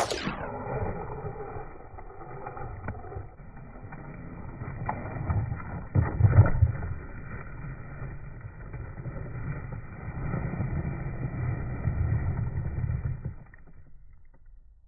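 Small 1:18-scale RC truck driving over rough ground and pine cones: its little electric motor running in spurts, with rumbling and knocks from the tyres and chassis bouncing, and a quick falling whine right at the start. The sound drops off sharply near the end.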